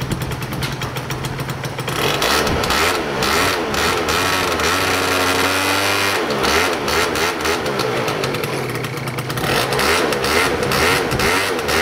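Yamaha Champ RS scooter's two-stroke engine idling, then revved repeatedly with the throttle from about two seconds in. The revs are held up for a couple of seconds in the middle, then blipped again toward the end. It is running again after a carburettor overhaul, new air filter and new spark plug.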